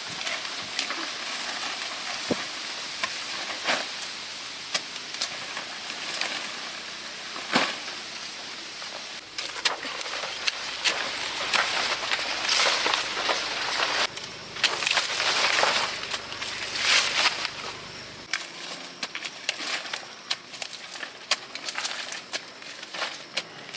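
Rustling and crackling with many short, sharp snaps, like leaves and brush being disturbed. It grows louder and denser through the middle, then thins out near the end.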